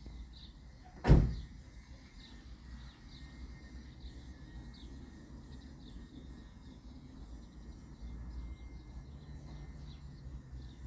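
A single sharp knock about a second in, over a low background rumble with faint bird chirps.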